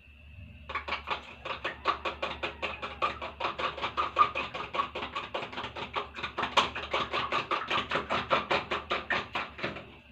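Metal spoon beating raw eggs in a clear plastic cup: a quick, even clicking of the spoon against the cup, about five strokes a second. It starts just under a second in and stops near the end.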